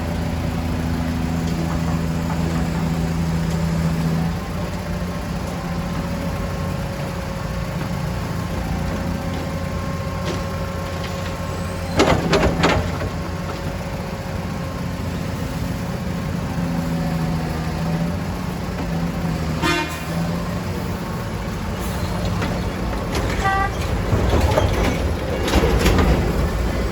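Heavy vehicle engine running steadily, with a few short horn toots: a loud one about halfway through and pulsing ones later on.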